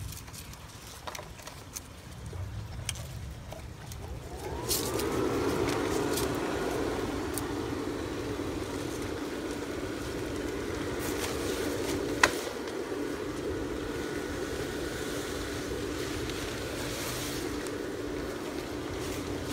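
The Gemmy inflatable's base blower fan starts about four seconds in, its whine rising in pitch as it spins up. It then runs with a steady hum while the figure inflates. A sharp click sounds about twelve seconds in.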